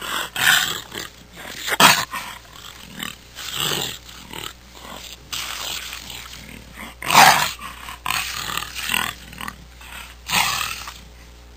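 Jaguar calling: a series of loud, rough calls at uneven intervals, the loudest about seven seconds in.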